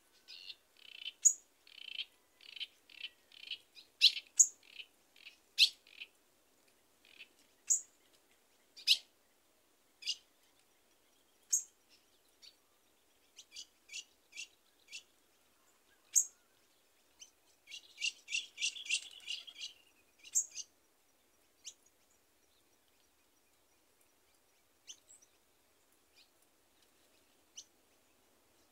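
Small songbirds calling in a scatter of short, sharp chirps, with a dense run of rapid notes about eighteen seconds in and fewer notes near the end.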